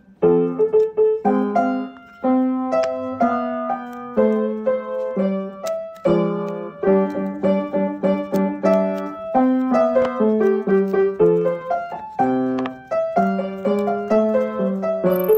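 Background piano music: a light tune of quick, separate notes.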